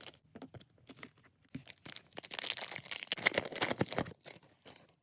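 Rustling and crinkling from handling trading cards and their packaging. It is faint and scattered at first, then a dense crackling run of a couple of seconds from just under two seconds in.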